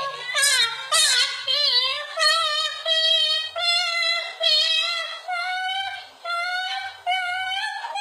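Yellow-crested cockatoo singing a learned tune on request: a steady run of wavering, sung syllables, about two a second, the pitch creeping upward.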